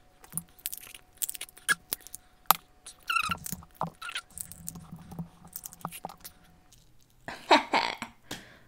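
Cooked snow crab leg shell being cracked and peeled apart by hand: a run of small sharp cracks and snaps with a few quick squeaks of shell rubbing on shell. Near the end comes a louder wet eating sound as the meat is taken.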